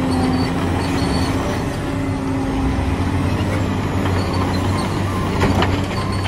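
Excavator's diesel engine running steadily with a low hum, starting and stopping abruptly like an inserted sound effect, with a few sharp metallic clicks about five and a half seconds in.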